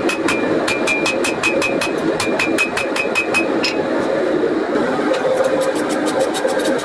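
Hand hammer striking a glowing steel billet on an anvil, about five quick blows a second, each with a ringing note off the anvil. The blows stop a little past halfway, then resume faster and duller near the end. A steady roar runs underneath.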